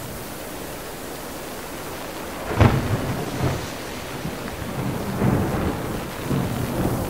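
Thunderstorm: steady rain hiss, then a thunderclap breaks suddenly about two and a half seconds in and rolls on as a deep rumble that swells and fades several times.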